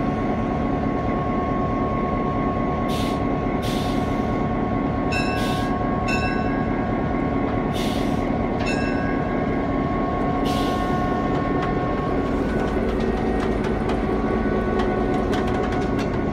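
EMD GP7 diesel-electric locomotive idling steadily, its 16-cylinder 567 engine giving a constant hum with a steady higher tone. Several short hissing bursts come between about three and eleven seconds in.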